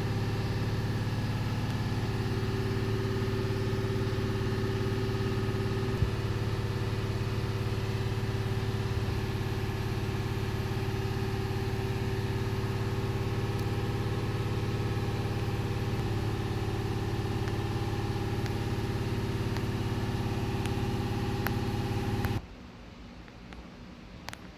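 A machine running steadily with an even, low-pitched mechanical hum that does not change, cutting off suddenly near the end.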